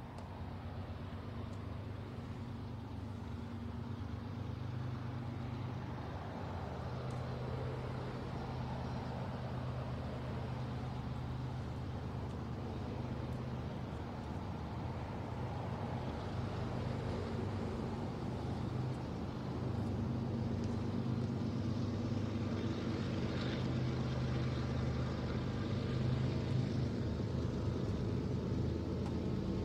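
Diesel locomotives of a BNSF freight train approaching, their engines making a steady low drone that grows gradually louder.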